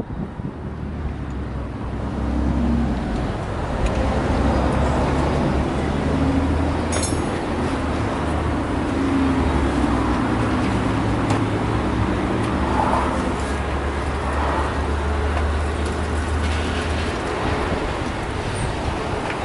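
A motor vehicle running with a steady low hum. It builds up over the first few seconds and then holds even.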